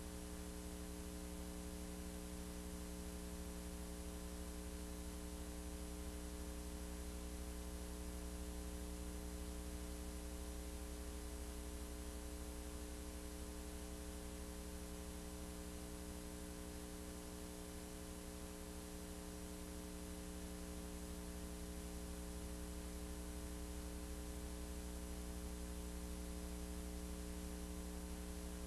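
Steady electrical mains hum with a layer of hiss, unchanging throughout, with no sound of fish or machinery in it.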